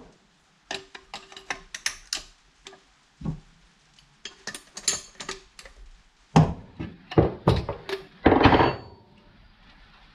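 Irregular metallic clicks, clinks and knocks from a spanner and nuts being worked on a kids' bike rear hub as the hub's bearing adjustment is backed off from over-tight. They come in clusters, busier from about six seconds in, with a short dense rattle near the end.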